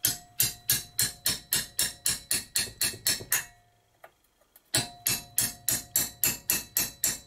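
Hammer blows, about four a second, on the toothed locking collar of a rusted-on exhaust screwed into the cylinder block of a 1970 Briggs & Stratton 2 hp engine, to knock it loose; each blow leaves a short metallic ring. Two runs of blows with a pause of about a second between them.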